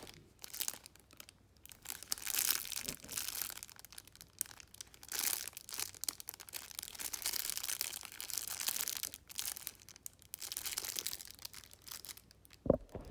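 Packaging crinkling and rustling in irregular bursts as squishy toys are handled, with one sharp knock near the end.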